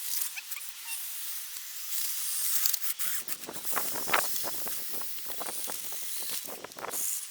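Snow hissing and crunching as small RC trucks push and scrape it with their plows. A steady high hiss runs throughout, and from about halfway a run of rapid, irregular crunches comes in and stops shortly before the end.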